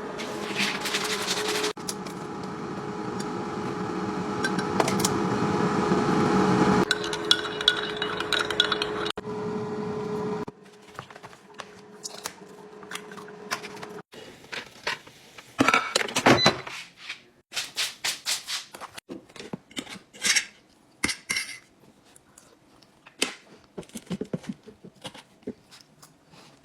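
An air fryer's fan running steadily with a humming tone for about ten seconds, then stopping. After that, plates and cutlery clink and scrape in short, scattered knocks.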